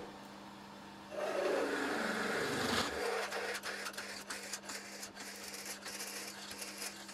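Milling machine spindle running while a twist drill bores into a metal vise jaw block: a steady motor hum under scattered small cutting ticks, with a louder, rougher stretch of cutting from about one to three seconds in.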